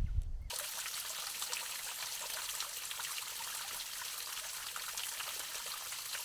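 Water trickling and pattering steadily, a dense hiss of fine drops. It cuts in suddenly about half a second in, after a brief low rumble.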